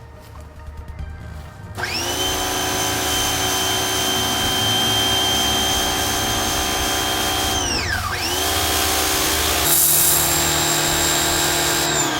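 Ryobi RY141812G electric pressure washer's motor and pump start up with a steady whine. About eight seconds in, the whine winds down briefly and spins straight back up. It winds down again at the end, with a louder hiss joining in about ten seconds in.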